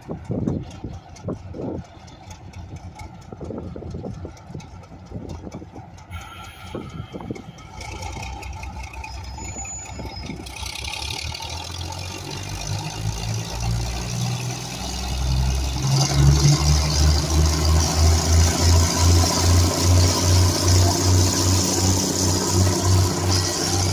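GE diesel switcher locomotive engines running and growing louder from about halfway as the locomotives draw near, ending in a steady throbbing rumble.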